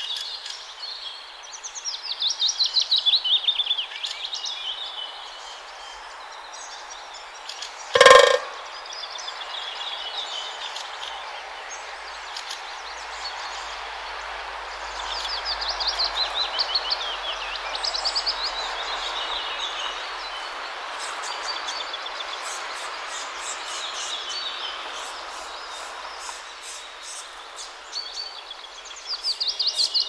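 Songbirds singing, several bursts of rapid trilled song a couple of seconds long, over the hiss of distant urban traffic that swells and fades. About eight seconds in, one short, loud pitched call or honk cuts through.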